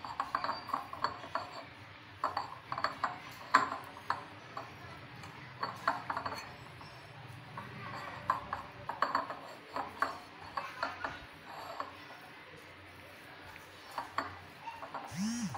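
Hands kneading gram-flour and malai dough in a glass bowl: irregular light clinks and taps of fingers and the bowl against the glass and the counter, a few a second.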